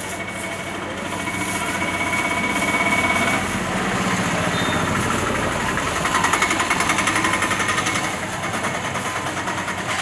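A small engine running with a rapid, even putter, loudest from about six to eight seconds in.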